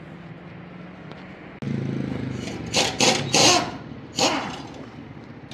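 An engine running steadily, suddenly louder about one and a half seconds in. Four short, loud hissing bursts follow in the second and third seconds.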